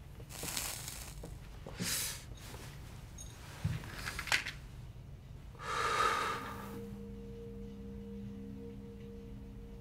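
Breathy drags and exhales of someone smoking a hand-rolled cigarette, with a couple of small clicks about four seconds in. A low, steady drone of film music comes in about two-thirds of the way through.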